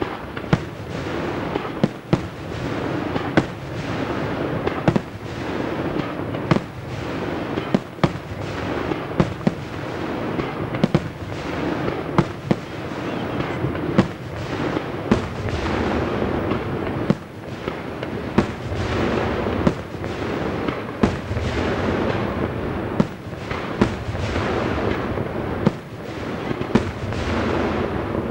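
Aerial firework shells bursting in a rapid display: sharp bangs about one or two a second over a continuous rumble and crackle.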